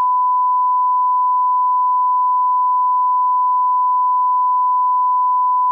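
Steady 1 kHz sine test tone held at one unchanging pitch, starting with a click: the broadcast line-up tone laid at the head of a TV commercial master.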